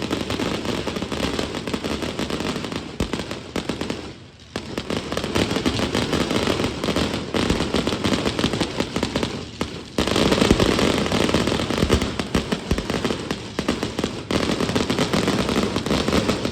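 Fireworks display going off in a dense, rapid barrage of bangs and crackling. It dips briefly about four seconds in, then grows louder about ten seconds in.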